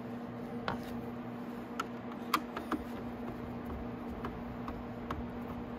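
Light, irregular clicks and ticks of a screwdriver and fingers working self-tapping screws out of a plastic motorcycle headlight housing, over a steady background hum.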